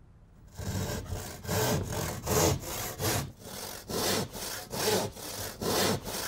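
Handsaw cutting through a sheet of plasterboard in steady back-and-forth strokes, about two a second, starting about half a second in.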